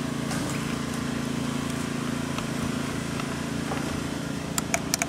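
Steady low mechanical hum, like an engine idling in the background, with a few light clicks near the end.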